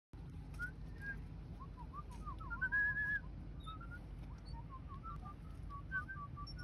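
A person whistling a warbling, wavering tune with a brief held higher note about three seconds in, over a faint low rumble.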